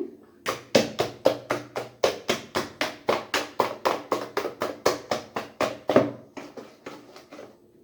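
A utensil knocking rhythmically against a mixing bowl as semolina batter is stirred, about four or five knocks a second, growing weaker near the end.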